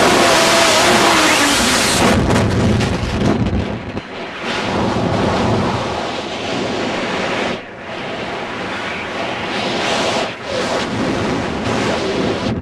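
Freefall wind rushing loudly over the microphone, which drops off sharply about two seconds in as the parachute opens. Quieter, gusty wind buffeting follows under the open canopy.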